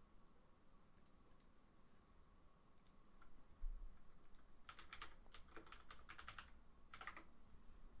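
Faint typing on a computer keyboard: scattered keystrokes, then quick runs of them, as a search term is typed in. One low thump about three and a half seconds in.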